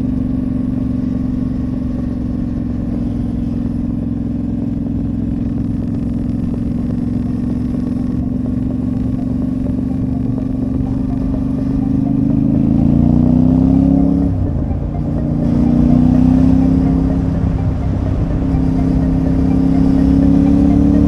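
Yamaha Ténéré 700's 689 cc parallel-twin engine under way. It holds a steady cruise at first. About two-thirds of the way through it accelerates, its pitch climbing, dropping abruptly twice as the rider shifts up, and climbing again. It is heard from a recorder wrapped in a small towel in the rider's backpack.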